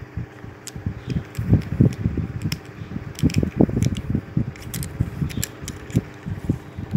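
Handling noise on a phone's microphone: irregular low bumps and rubbing with scattered small clicks, heaviest in two clusters partway through.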